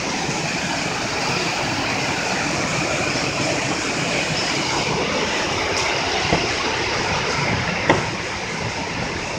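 Steady rush of a mountain river's white water tumbling over rocks, with a few brief knocks, the sharpest about eight seconds in.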